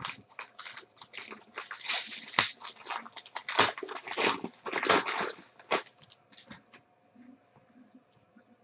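Foil wrapper of a trading-card pack being torn open and peeled off by hand: dense crackling and crinkling for about six seconds, then only a few faint rustles.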